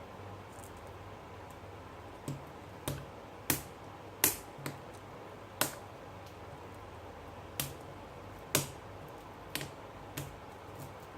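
A string of about ten sharp, irregular clicks and taps, like small tools and hard phone parts being handled and set down during a smartphone repair, over a steady low electrical hum.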